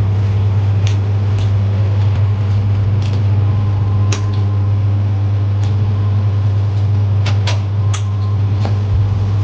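A steady low hum runs throughout, with scattered light clicks and taps from the small parts of a MacBook Pro screen bezel and its rubber gasket strip being handled and pressed in. A faint thin tone sounds through the middle.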